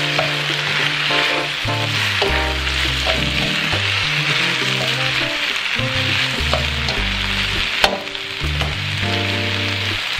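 Chicken and vegetables sizzling in a hot wok as they are tossed with tongs, with one sharp click about eight seconds in. Background music with a bass line plays underneath.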